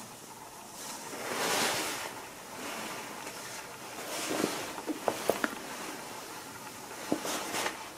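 Clothing fabric rustling in several swells as a jacket is handled and put on, with a few small sharp clicks around the middle and near the end.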